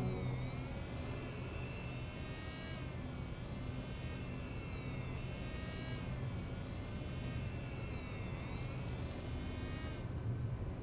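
A steady low hum with a high whirring tone that swoops down and back up about every two and a half seconds.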